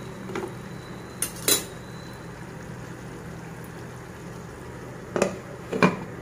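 A steel spoon knocks against a nonstick pan of cooking chicken curry three times, then a glass lid clatters down onto the pan twice near the end, over a low steady hiss from the curry cooking.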